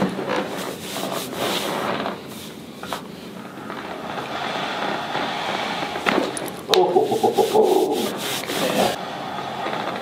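Hands rubbing and kneading through a cotton T-shirt on a patient's back, a scratchy rubbing of fabric in uneven strokes: soft-tissue work to loosen the muscles before a chiropractic adjustment. About seven seconds in, a louder pitched sound lasts for about two seconds.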